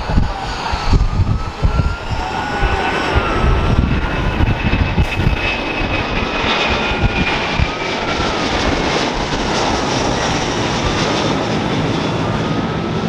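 Airbus A330 jetliner's twin turbofan engines at takeoff power as it lifts off and climbs away: a steady, loud roar with a rumbling low end and a whine that wavers up and down in pitch.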